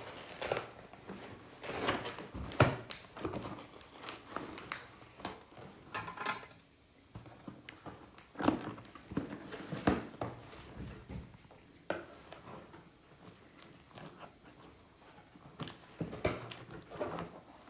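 Packing tape on a cardboard shipping box being cut with scissors and the flaps pulled open by hand: irregular snips, scrapes and crinkling.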